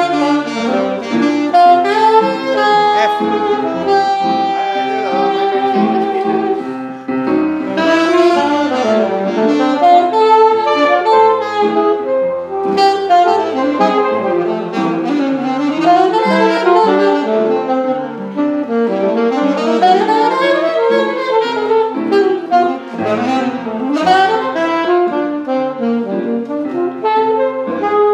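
Instrumental jazz with a saxophone lead playing quick rising and falling runs over a backing.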